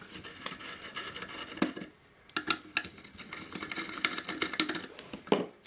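A screwdriver undoing the small screws of a metal electronics module: a run of sharp clicks and scraping from the tool working the screw heads, with a short pause about two seconds in.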